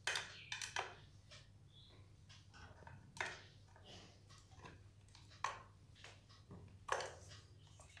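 Screwdriver working the screws on a ceiling fan's motor cover: a handful of short, sharp clicks and knocks, three close together in the first second, then a few more spaced a couple of seconds apart.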